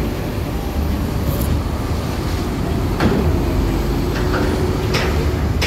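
Tour bus on a Hino RK280 chassis driving slowly onto a ferry's car deck: a steady low engine rumble, with a few sharp knocks about three and five seconds in.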